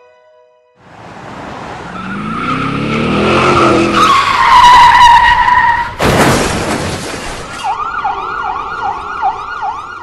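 Sound effects of a car approaching with a screech of tyres that rises and then drops in pitch, a sudden crash about six seconds in, then an emergency siren wailing in a fast repeating yelp.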